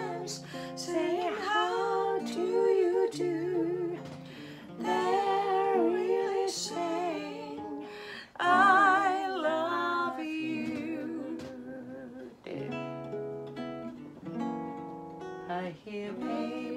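Guitar accompaniment, played as chords and single notes, under a voice singing a melody with vibrato. The voice is loudest about halfway through, and for the last few seconds the guitar mostly plays on its own.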